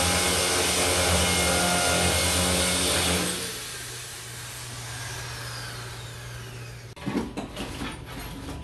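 Electric power tool running at full speed, switched off about three seconds in and winding down with a slowly falling whine. Near the end, a few knocks and rustles as tools are handled.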